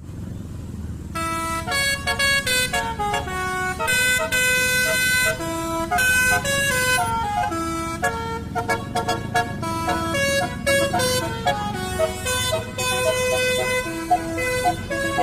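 Basuri multi-tone 'telolet' air horn playing a song melody note by note, starting about a second in, over a steady low engine rumble.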